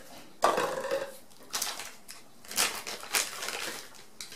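Plastic wrapping crinkling in several short bursts as a tool holder is unwrapped by hand.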